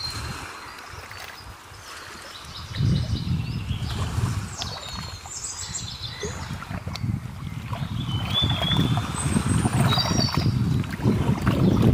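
Small river waves lapping and splashing against the rocky bank, growing louder from about three seconds in, with a low rumble of wind on the microphone. Birds chirp briefly now and then.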